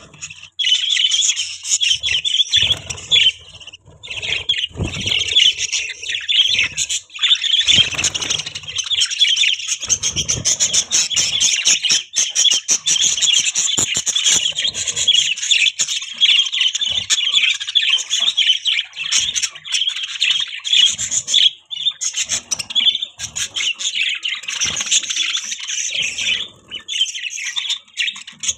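A group of budgerigars chattering and warbling without a break, a dense stream of fast, high chirps. Occasional low thuds and knocks sound underneath, mostly in the first ten seconds.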